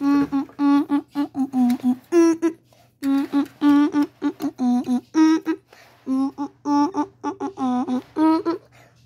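A person humming a tune in short, bouncy notes, with pauses between phrases.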